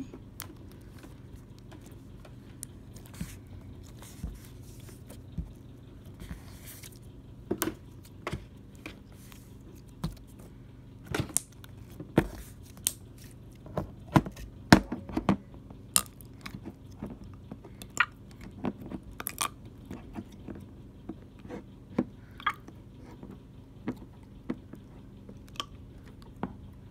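Green slime squeezed and kneaded by hand, giving irregular small wet pops and clicks, thickest around the middle of the stretch.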